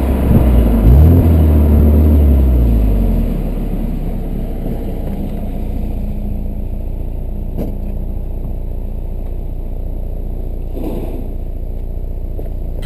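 BMW E81 120i four-cylinder engine through its stock exhaust: a quick rev whose pitch rises and falls back in the first couple of seconds, then settles to a steady, quieter idle.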